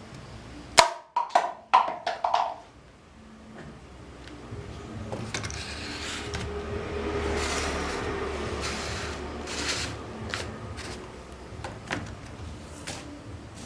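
A sharp snap followed by a quick run of four or five knocks with a short ring, then a long stretch of rustling and handling noise with scattered small clicks.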